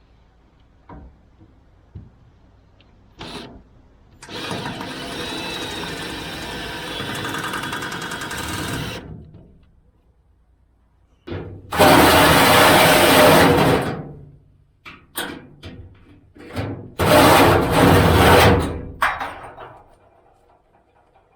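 Power tool running in three bursts of a few seconds each, the last two louder, with scattered clicks and knocks between them.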